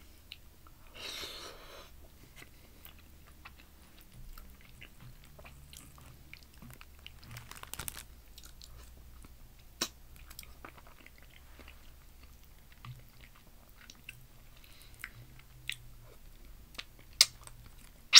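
A person chewing fufu with peanut soup by hand, close to the microphone: soft wet chewing and mouth sounds with many small sharp clicks, and a few louder clicks near the end.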